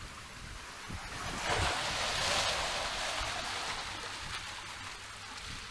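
Sea wave surging into a narrow rocky channel and washing back out. The rushing hiss swells about a second and a half in, then fades away over the next few seconds.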